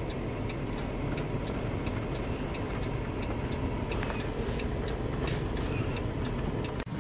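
Steady road and engine noise inside a truck's cabin, with faint ticks running through it; the sound dips out briefly just before the end.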